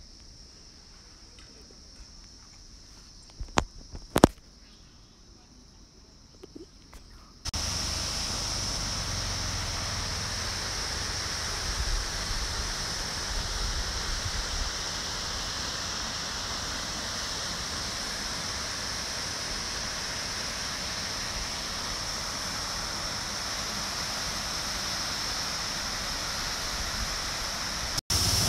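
A faint, steady high insect drone with a few sharp knocks about four seconds in. About seven seconds in, the sound cuts abruptly to the loud, steady rush of a waterfall, and the high insect drone carries on over it.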